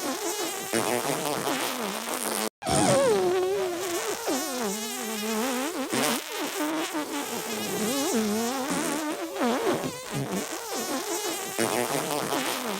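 Comedic sneeze-and-fart sound clip played on a loop: wobbling, buzzing pitched sounds with music, broken by a brief silent gap about two and a half seconds in where the clip starts over.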